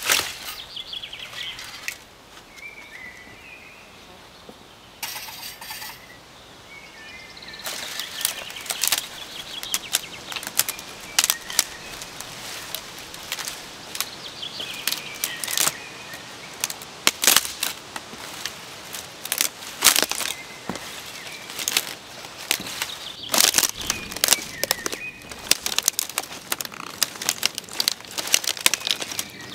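An armful of dry brush and sticks is dropped onto a stone fire ring with a crash. Then dry twigs rustle and snap again and again as they are broken and piled up by hand.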